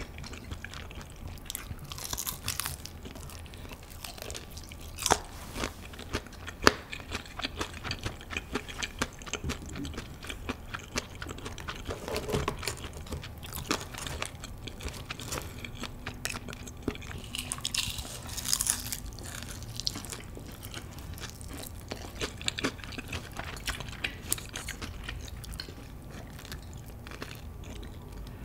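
Close-miked crisp crunching and chewing as pieces of Kyochon Honey Combo glazed fried chicken are bitten into and eaten, with many sharp crackles from the crust.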